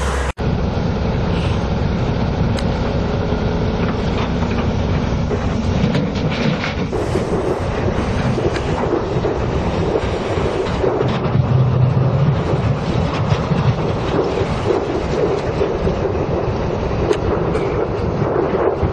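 Tracked hydraulic excavator's diesel engine running under load while it digs and loads, with frequent knocks and clanks of the bucket and tracks. The sound cuts out for an instant just after the start.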